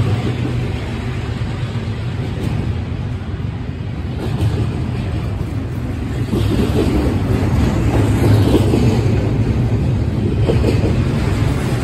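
Double-stack intermodal freight cars rolling past at track side, their steel wheels rumbling steadily on the rails; the diesel locomotive's drone fades in the first second, and the rolling noise grows louder from about six seconds in.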